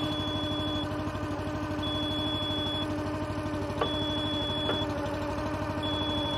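Hinowa Lightlift 15.70 spider lift's power unit and hydraulics running steadily while its outriggers fold up, with a high warning beep about a second long sounding every two seconds.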